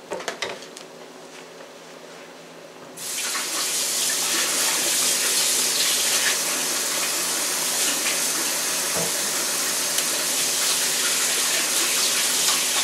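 A kitchen faucet is turned on about three seconds in and runs steadily into the sink while a spatula is washed under it. A few light knocks of handling come just before it.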